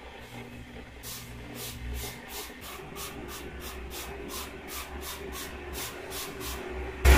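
Quiet background music: soft, evenly spaced hissing ticks, about three to four a second, over a low held tone. The full track comes in much louder right at the end.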